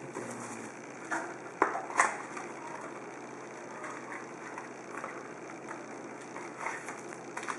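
Clear cellophane shrink wrap being peeled and crinkled off a 2011 Topps Triple Threads trading card box: a run of small crackles, with two sharper snaps about one and a half to two seconds in.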